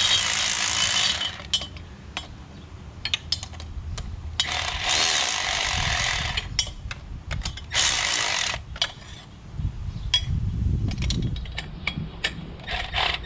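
Cordless electric ratchet tightening exhaust header nuts. It runs in short spurts of one to two seconds, about four times, with light clicks of the tool and socket between.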